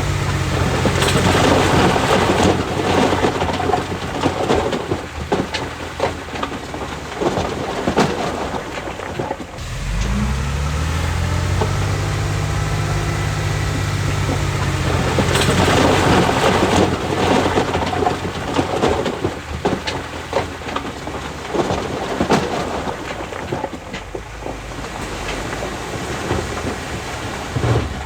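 Loose rock moving under heavy earthmoving machinery: a dense rumble with many knocks, in two long stretches. Between them, about ten seconds in, a diesel engine revs up and runs steadily for about five seconds.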